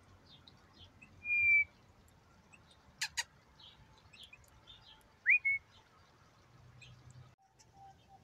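Two soft whistled notes: one steady, level note about a second in, and a short note past five seconds that rises and then holds. Faint high bird chirps and a sharp double click around three seconds.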